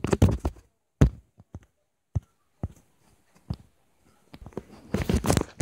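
Handling noise from a phone being carried: a burst of bumps and rubbing against the microphone, a single sharp knock about a second in, a few faint taps, then more rubbing and bumps near the end.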